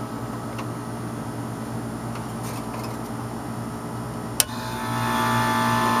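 Bryant heat pump outdoor unit starting up: a steady low hum, then a sharp click about four seconds in as the contactor pulls in, and the compressor starts and runs with a louder, steady hum and whine. The compressor is starting again after its tripped internal thermal overload was cooled back to continuity, drawing about 22 amps.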